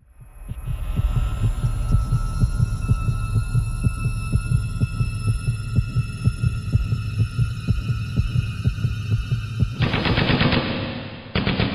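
Film sound design: a heartbeat-like low throbbing pulse under a steady high ringing tone, the dazed ear-ringing after a blast. About ten seconds in, the ringing cuts off and a harsh noisy crackle takes over.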